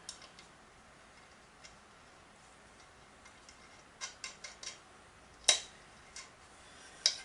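Small metal engine parts clicking and tapping as a washer and nut are handled and fitted onto a shaft: a few quick light clicks about four seconds in, then two sharper, louder clicks about a second and a half apart near the end.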